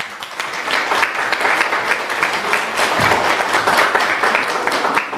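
Audience applauding: many hands clapping together, swelling in the first second and then holding steady.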